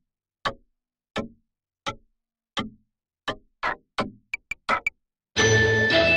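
A series of single sharp ticks, about one every 0.7 seconds, that speed up into a quick flurry and then stop. About half a second later loud music starts.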